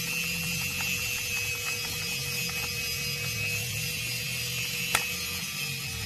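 Electric drill's keyed chuck turned by hand to seat and tighten a drill bit: small metal clicks and rattles, with one sharper click about five seconds in, over a steady low hum and hiss.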